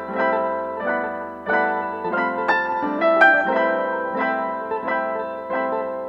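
Background music: a piano playing chords struck at a steady pulse, about three every two seconds, each ringing and fading.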